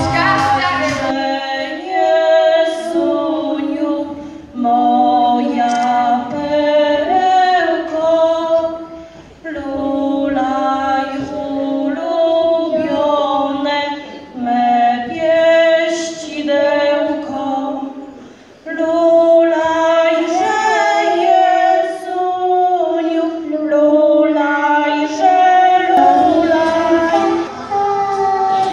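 A woman and a young girl singing a Polish Christmas carol into microphones, in phrases of a few seconds with short breaks between, with no clear instrumental backing.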